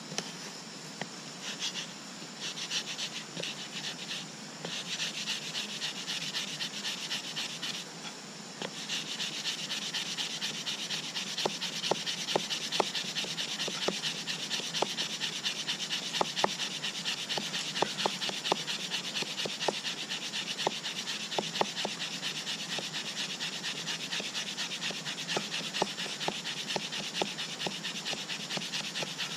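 Fire plow: a wooden stick rubbed rapidly back and forth along a groove in a dry wooden base, a fast rhythmic scraping rasp with occasional sharp clicks. It comes in short runs with brief pauses at first, then runs on without a break from about nine seconds in.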